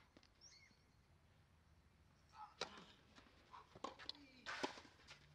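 Tennis ball struck by rackets in a rally on a clay court: several sharp hits, the loudest about halfway through and near the end. A bird chirps briefly near the start.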